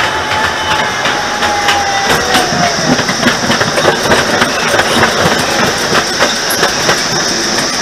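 Chance Rides miniature park train running, its engine humming steadily while the wheels click repeatedly over the rail joints, heard from the passenger car just behind the locomotive.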